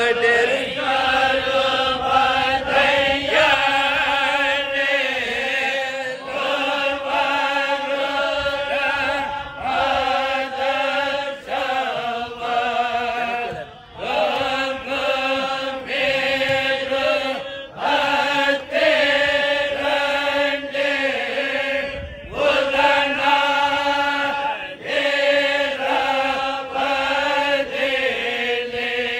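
A voice chanting an Islamic devotional piece in long, held, ornamented melodic phrases, pausing briefly every few seconds.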